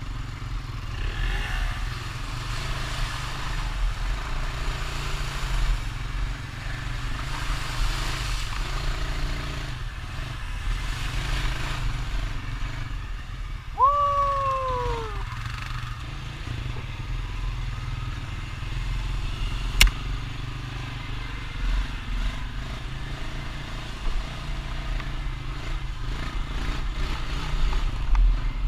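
Honda Rancher ATV's single-cylinder engine running steadily with a heavy low rumble. About halfway through there is a short falling whine, and a sharp click comes a few seconds later.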